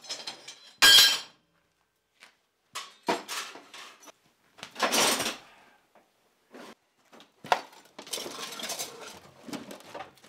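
Loose steel pieces and bar stock clanking and clattering as they are picked up and set down in turn. A sharp, ringing clank about a second in is the loudest, and a longer rattle of metal comes near the end.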